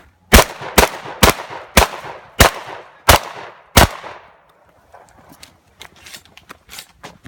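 Seven shotgun shots fired in quick succession, roughly one every half to two-thirds of a second, each followed by a short echoing tail. Fainter clicks and ticks follow in the last few seconds.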